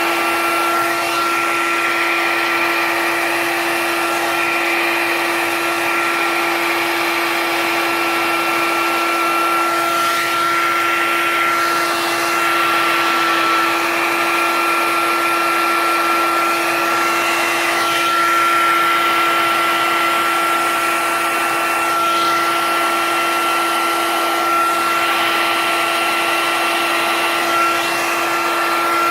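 Handheld hair dryer running steadily: an even rush of air over a constant motor hum and whine.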